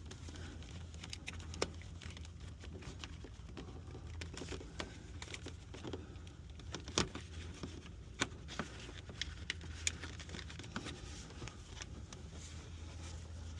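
Light rustling and scattered small clicks, like handling of wires and test leads, over a steady low hum.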